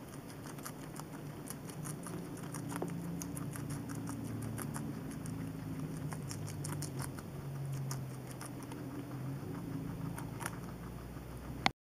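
Two guinea pigs chewing raw vegetables: a fast, irregular run of small crunching clicks as they bite and grind cauliflower and lettuce.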